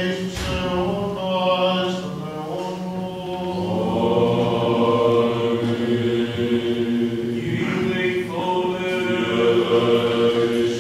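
Greek Orthodox Byzantine chant: chanters singing a slow, drawn-out melody over a steady held drone note (the ison). The sound grows fuller and louder about four seconds in.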